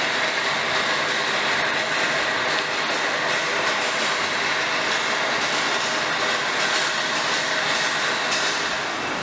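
A steady, loud rushing mechanical noise with a faint clatter in it, easing slightly near the end.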